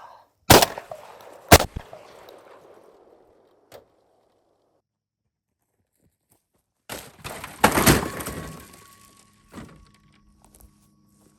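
Two sharp bangs about a second apart, each with a short ringing tail, then after a pause a longer rough crash about seven to eight seconds in.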